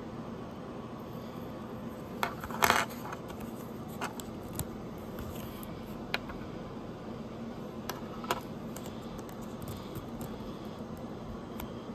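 Small hard clicks and taps as Hello Kitty metal snap hair clips are unclipped from their cardboard backing card and set down on a wooden table, the loudest a short cluster about two and a half seconds in. A faint steady hum runs underneath.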